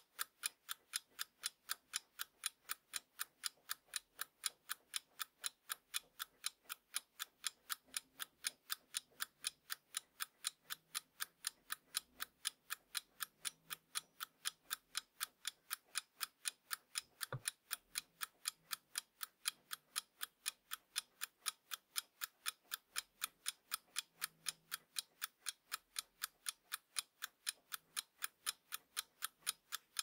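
Mechanical alarm clock ticking steadily, about four to five ticks a second. One deeper click comes about halfway through.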